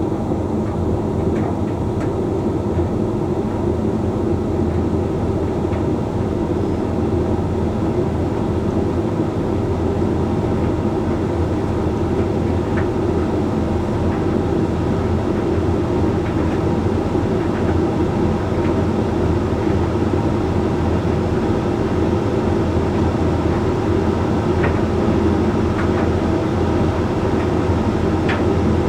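Hoover Link X Care condenser tumble dryer running mid-way through a Whites cycle: steady hum and rumble of the turning drum, motor and fan, with a few faint ticks in the second half.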